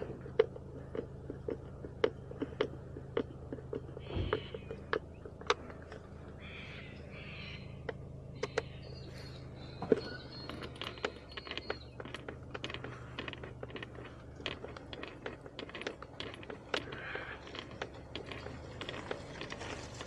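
Plastic clicks and knocks of an engine air-filter box being handled and fitted back into place, over a steady low hum. In the first six seconds the ticks come evenly, about twice a second, and after that the knocks are scattered.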